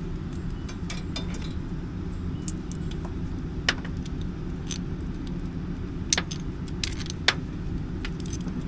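Scattered small metallic clicks and clinks of brass air fittings and a coiled air hose being handled and connected, over a steady low engine hum.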